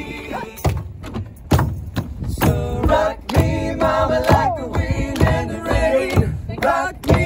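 Acoustic string band playing an instrumental break: strummed acoustic guitars and upright bass keep a steady beat under a bending lead melody, with one sliding fall in pitch about four seconds in.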